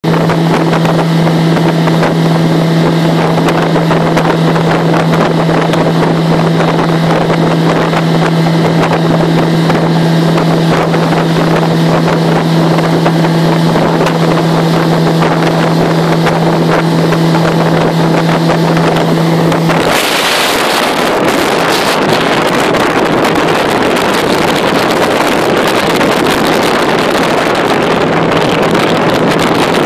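Jet-drive outboard motor pushing a boat at steady high speed, an even drone that holds one pitch. About twenty seconds in, the drone gives way to a loud rush of wind on the microphone and water.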